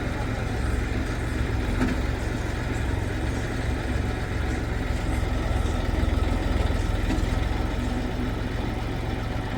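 Diesel engine running steadily at an even, low speed.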